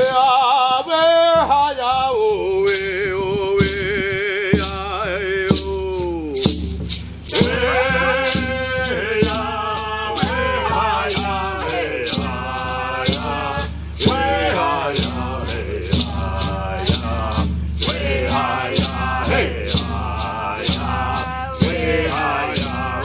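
A chant sung with wavering held notes, accompanied by a maraca shaken in a steady beat about twice a second.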